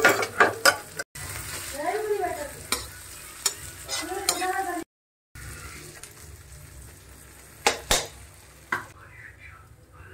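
Metal spatula stirring and scraping in a steel kadhai of frying chopped onion and chilli, with a light sizzle and sharp clicks of the spatula knocking the pan. The sound cuts out briefly twice, and a few more knocks come near the end as mashed potato is mixed in.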